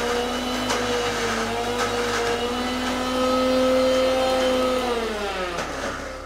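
Electric mixer grinder (mixie) running with a steady whine while it grinds steamed gooseberries, ginger and peeled tomato to a smooth paste. It is switched off about five seconds in, and its pitch falls as the motor winds down.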